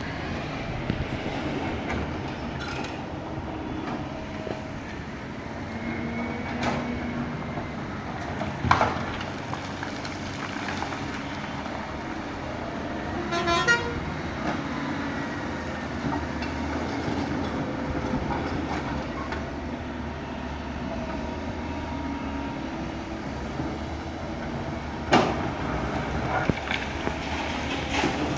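Kobelco 220 hydraulic excavator working: its diesel engine runs steadily under load while the hydraulic whine shifts in pitch as it works. There are a few sharp knocks, the loudest about nine seconds in and again near the end, and a short rattle around the middle.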